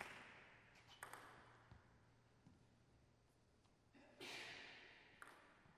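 Table tennis ball bouncing: a sharp click with a short echo at the start and another about a second in, then a couple of faint ticks. About four seconds in comes a short hiss that fades, and one more click follows near the end.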